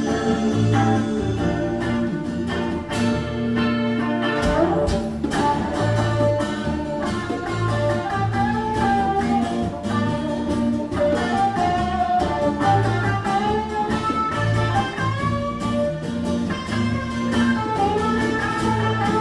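Instrumental break of a rock-blues band song: a guitar plays a melodic lead line with bent notes over bass guitar, rhythm guitar and a steady percussion beat.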